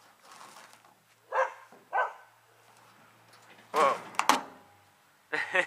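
A dog barking, with short single barks about a second and a half and two seconds in. A louder, harsher burst of sound follows about four seconds in, and a quick run of short sounds starts near the end.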